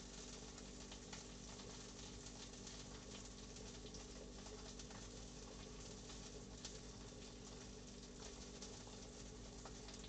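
Faint, steady sizzle of a steak frying in oil in a pan, with scattered small pops and a low steady hum underneath.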